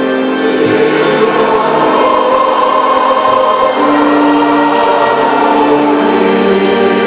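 Choir singing a slow liturgical hymn in long held chords, the chord changing every couple of seconds.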